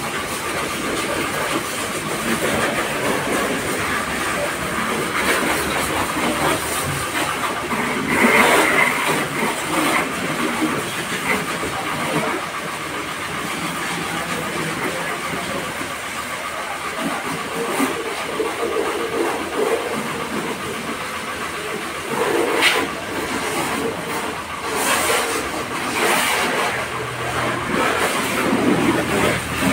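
Steady hiss of water spraying from a hose onto a car's body and the wet ground, with a few louder surges of splashing as the jet moves.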